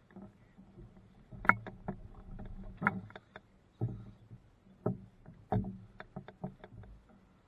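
Irregular knocks and hollow thumps on a canoe hull, with paddle bumps, as paddlers shift and settle in their boats on the water. The loudest knock comes about a second and a half in.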